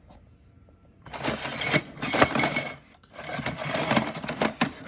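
Replacement exhaust heat shield clamps being handled in their packaging: two bursts of rustling with many small clicks, the second starting about three seconds in.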